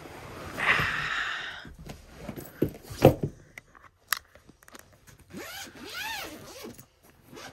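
A bag zipper pulled open for about a second, followed by a few knocks and thumps as gear is handled, the loudest about three seconds in. A brief voice-like sound comes near the end.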